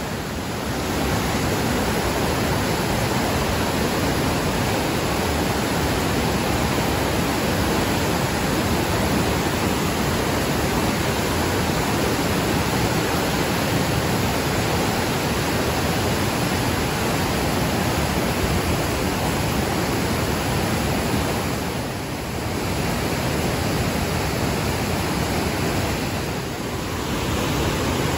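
Fast mountain river rushing through whitewater rapids over boulders. It is a steady, dense roar of water that dips briefly twice near the end.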